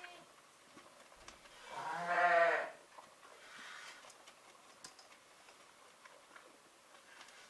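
A farm animal bleating once, a single wavering call about a second long, about two seconds in.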